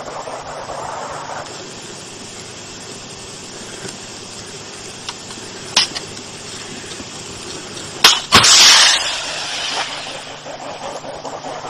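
An HJ-8 anti-tank guided missile launching: a loud sharp bang about eight seconds in, followed at once by a rushing hiss lasting about a second and a half. A single shorter sharp crack comes a couple of seconds before, over a steady background hiss.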